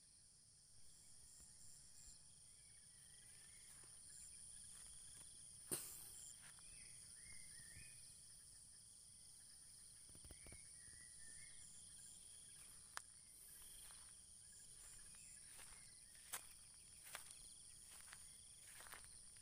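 Faint, steady high-pitched drone of insects, with a few short rising chirps and several sharp clicks, the loudest about six seconds in.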